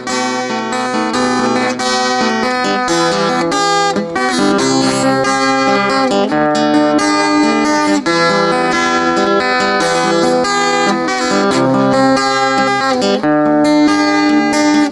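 Cutaway acoustic guitar strummed in a steady rhythm: an instrumental break in the song, with no singing.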